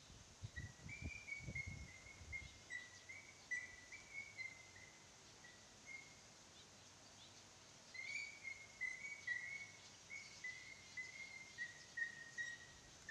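A bird calling in a run of short, similar notes, about three a second, that pauses briefly in the middle and then starts again, with fainter chirps higher up. A few soft low thumps come in the first two seconds.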